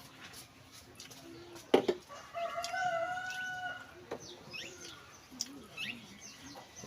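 A rooster crowing once, one long call of nearly two seconds, just after a sharp knock about two seconds in; short high bird chirps follow.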